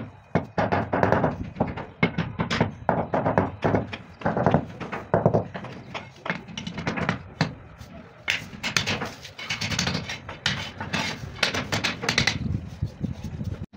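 Hand hammer tapping on a strip of marble, then marble pieces knocking and clacking against the marble floor as they are set in place; irregular sharp knocks, most frequent in the second half.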